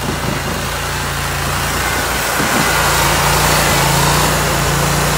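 The engine of a Toro GrandStand Multi Force stand-on machine running steadily, getting a little louder about halfway through.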